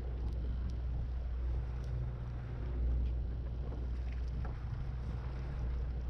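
Steady low drone of a sportfishing boat's engine running, with a few faint clicks over it.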